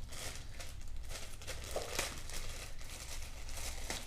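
Plastic packaging crinkling and rustling in irregular crackles as it is handled and opened, a little tearing among them.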